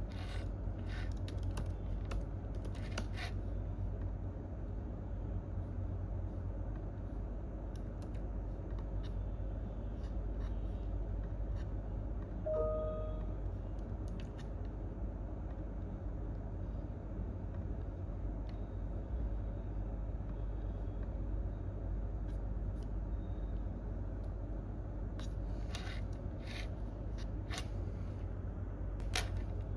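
Sparse computer keyboard typing and clicks, a few short runs of keystrokes near the start and again near the end with only scattered taps between, over a steady low room hum. A brief squeak about twelve seconds in.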